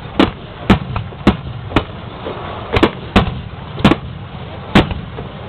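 Aerial firework shells bursting in a display: a run of sharp bangs, about eight of them, at irregular intervals.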